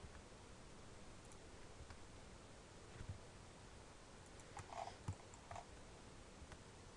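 Near silence: faint room hiss with a few soft clicks of computer controls being worked, about three seconds in and a small cluster around five seconds in.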